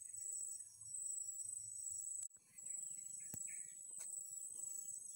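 Steady high-pitched insect trill with a pulsing chirp just beneath it, as from crickets, and a couple of faint clicks in the second half.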